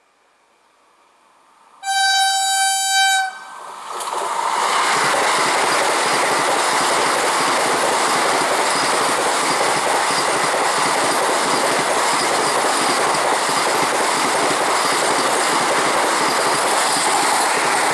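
Indian Railways express train approaching and passing at high speed: the locomotive's horn sounds once, a steady blast of about a second and a half, then the loud, steady rush and wheel clatter of the train's coaches going by.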